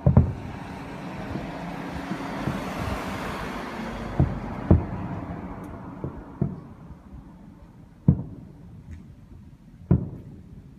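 Aerial fireworks bursting: about six deep booms with short echoing tails, the loudest at the very start and about eight seconds in. A broad hiss swells over the first few seconds and then fades.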